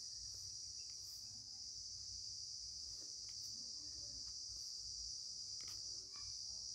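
Steady, high-pitched chorus of crickets chirping continuously, with a few faint clicks.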